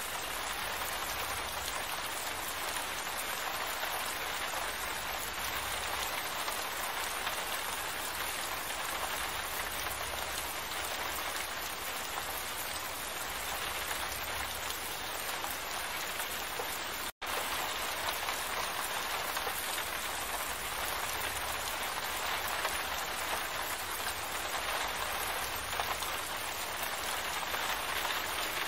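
Steady rain falling, an even, dense hiss of drops. The sound cuts out for a split second about 17 seconds in.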